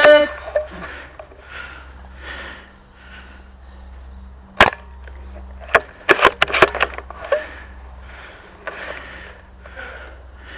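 Airsoft gunfire in the field: a burst of sharp cracks at the start, a single crack about four and a half seconds in, and a quick cluster of shots around six to seven seconds, with rustling in between.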